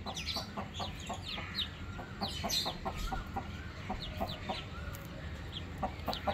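Chickens clucking in a steady run of short, fairly quiet notes, several a second, with thin high falling chirps over them.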